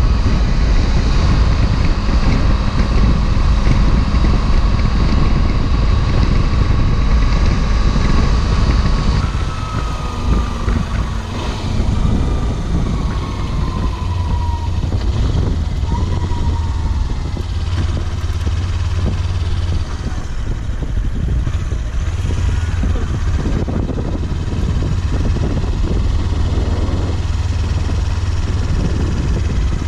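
Kawasaki Versys-X 300's parallel-twin engine running at highway speed under heavy wind noise. About nine seconds in, the engine note drops in pitch in three steps as the bike slows, then settles into slow, low-revving running.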